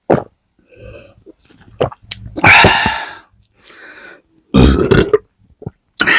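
A person burping loudly several times after eating, the longest burp about two seconds in, another near five seconds and a third at the very end.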